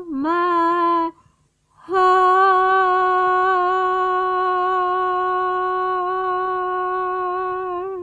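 A woman singing unaccompanied. First a short note that dips in pitch and comes back up, then a brief breath pause, then one long held note of about six seconds that closes the song.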